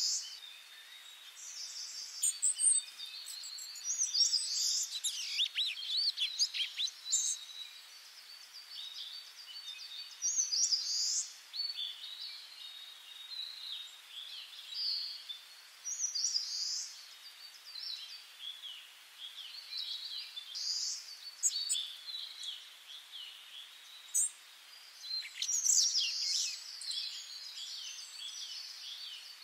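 Several birds calling and chirping in the trees, in short sweeping calls that come every second or two, over a faint steady background hiss.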